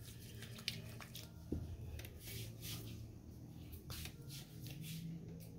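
Hands rubbing lotion into skin, heard as faint soft rubbing and handling noises, with a couple of light clicks in the first second and a half.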